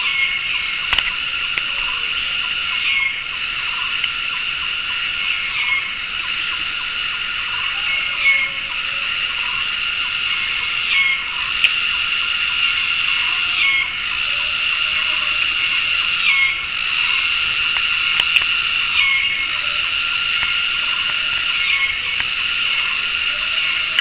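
Dense chorus of tropical cicadas, a loud steady high-pitched buzz that drops out briefly and restarts together about every two and a half seconds, as the insects synchronize their calls.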